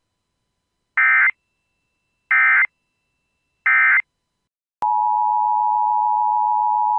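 Emergency Alert System header: three short screeching bursts of digital data tones about a second apart, then the steady two-tone EAS attention signal starting about five seconds in, marking the start of a new weather warning.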